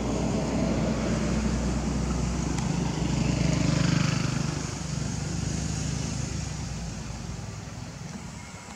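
A motor vehicle's engine going past, growing louder to a peak about four seconds in and then fading away.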